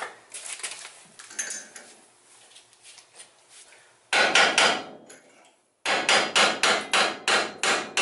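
Hammer blows on a truck's front steering knuckle, knocking the upper ball joint loose. After some light clinks of tools, there is a quick run of four sharp strikes about four seconds in, then a steady series of about ten more at roughly four a second.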